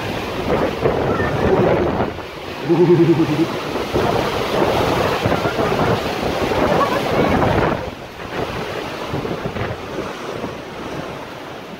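Torrential rain and gale-force wind in a thunderstorm, the gusts buffeting the microphone; the rush is heavier for the first eight seconds or so, then eases. A short low humming tone sounds about three seconds in.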